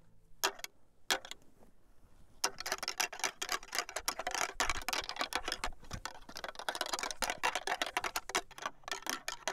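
A pair of deer antlers being rattled together by hand: a couple of single clacks, then from about two and a half seconds in a fast, continuous clatter of tines clashing and grinding. This is antler rattling, imitating two bucks fighting to draw a buck in.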